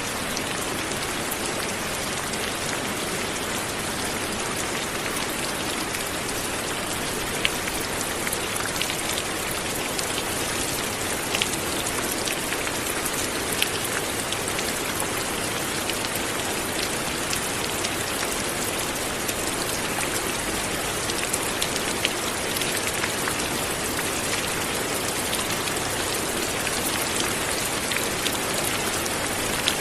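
Light rain falling steadily, with scattered individual drops ticking on a surface.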